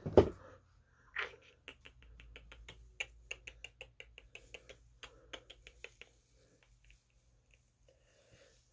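A quick run of sharp, crackling clicks, about five a second, from fingers working through and separating sections of hair held close to the phone's microphone; the clicks stop about six seconds in.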